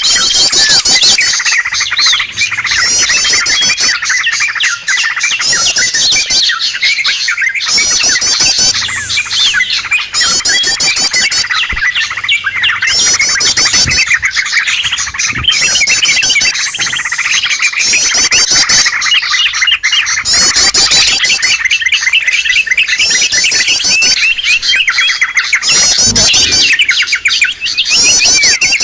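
Bird-lure recording of yellow-vented bulbuls and small songbirds: a dense, continuous chorus of overlapping chirps, squeaky calls and fast repeated trills.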